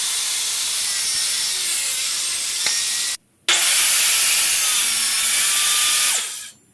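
Benchtop table saw running and ripping through particle board: a loud, steady cutting noise with a high whine. It breaks off abruptly about three seconds in, comes back just as loud a moment later, and dies away near the end.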